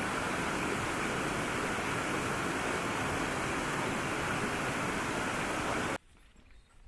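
Steady rush of falling water from a small river waterfall, cutting off abruptly about six seconds in.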